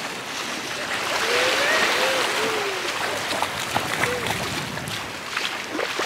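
Sea waves washing in at the shore, swelling about a second in, with a few short, distant voices calling out.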